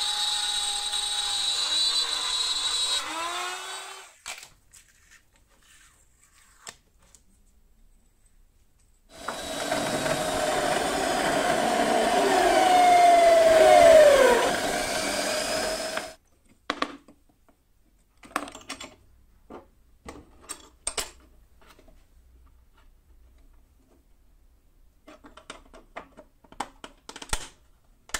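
A hand-held router cutting a circle in clear plastic, running steadily, then stopping about four seconds in. From about nine to sixteen seconds a drill press with a step drill bit bores into a clear plastic disc, growing louder, with the pitch dropping as the bit bites near the end. After that come scattered light clicks and knocks of parts being handled.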